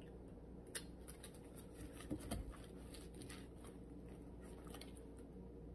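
Faint handling noise: a few light clicks and soft rustles about a second in and around two seconds in, over a low steady room hum.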